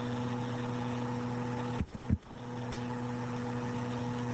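Steady low hum with hiss underneath. About two seconds in it drops out for a moment, with a couple of sharp clicks.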